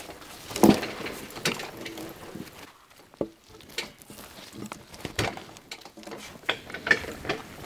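Logs knocking and scraping as they are worked with hand log tongs: irregular wooden knocks, the loudest about a second in, with light clinks of metal.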